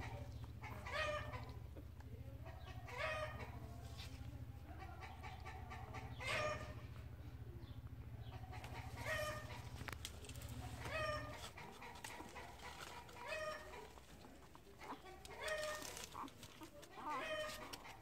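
Newborn puppies whimpering and squeaking: short, high-pitched cries, about one every two seconds.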